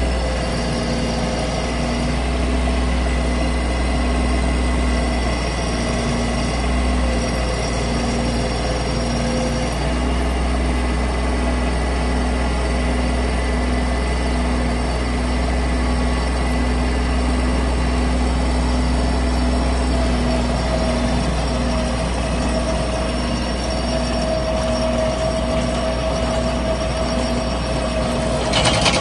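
Bobcat MT55 mini track loader running under power: a steady engine rumble with whining hydraulic tones and a low hum that pulses regularly, about one to two beats a second. A sharp metallic clank near the end.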